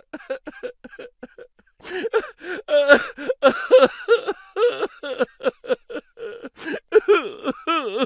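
Comedy voice sound effect: a rapid run of short laughing or giggling syllables whose pitch swoops up and down, fainter at first and louder from about two seconds in.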